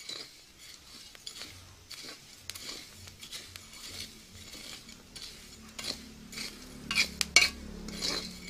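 A wooden stick stirring coffee beans mixed with rice, coconut and red onion as they roast in a pan: repeated scraping and rattling strokes, loudest near the end.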